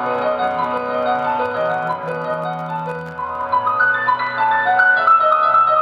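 Yamaha stage keyboard played live with a piano sound: a flowing line of notes and chords over held low notes, climbing higher and a little louder in the second half.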